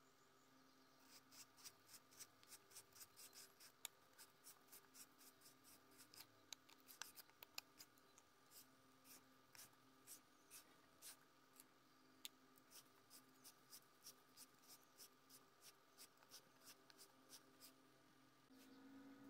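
A valve being hand-lapped into a cast-iron Yanmar YM240 cylinder head: a screwdriver twists the valve back and forth on its seat in coarse grinding compound, giving faint, gritty scraping strokes about twice a second. The compound is grinding the valve face and seat down to new metal where they touch.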